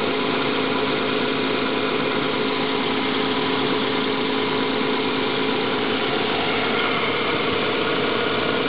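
Nissan Skyline's 2.5-litre twin-cam, 24-valve straight-six engine idling steadily with the hood open, an even hum with no change in speed.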